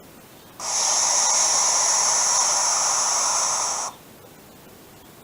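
Young barn owl hissing in protest at being handled: one long, steady hiss of about three seconds, starting about half a second in.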